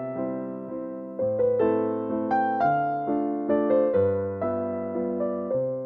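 Background music: a gentle piano melody of notes that ring and fade, over sustained low bass notes.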